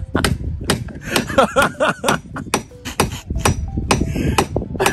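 Claw hammer striking the wooden formwork board along the top of a concrete-block wall. The blows come quickly and irregularly, several each second, each a sharp knock with a short metallic ring.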